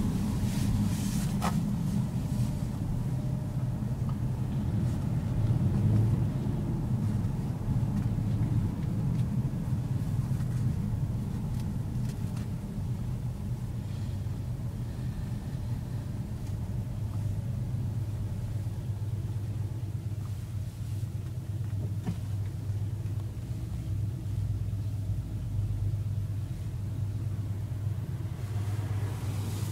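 Honda CR-V heard from inside the cabin while driving on a city street: a steady low rumble of engine and road noise, a little quieter in the second half.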